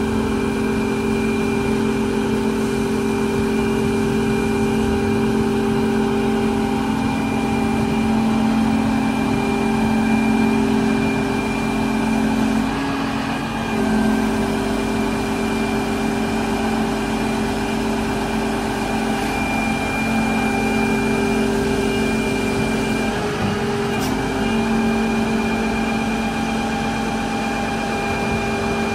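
Volvo excavator's diesel engine running steadily with a constant pump whine, its pitch dipping briefly twice, about halfway through and again some three-quarters through.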